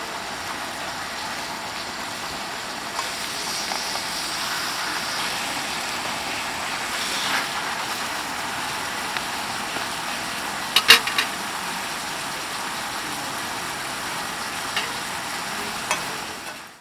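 Beef and onions in sauce sizzling in a cast-iron skillet while metal tongs stir and turn them, with a sharp clack of the tongs against the pan about eleven seconds in and a few lighter clicks.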